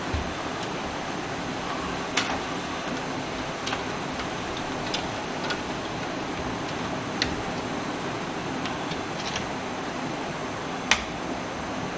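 Scattered light clicks and taps as hands handle parts against the metal interior of a computer case during PC assembly, over a steady background hiss. The clicks come irregularly, about eight of them, and the sharpest one falls near the end.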